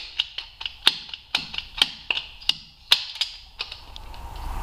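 Red ratcheting hose cutter clicking as it is worked shut on a rubber coolant hose, cutting out a section to fit a tee. Sharp, irregular clicks, about three a second, that stop shortly before the end.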